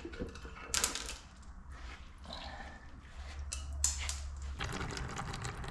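Scattered clicks and knocks of hand tools on metal engine parts, over a low steady rumble.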